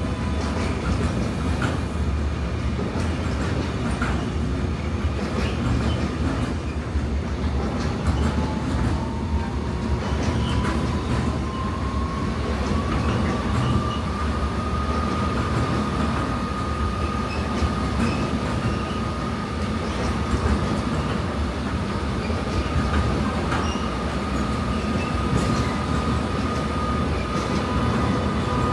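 Freight train rolling past, its wagons' wheels making a steady rumble and roar with scattered clicks over the rail. About a third of the way in, a thin high whine rises in pitch and then holds steady.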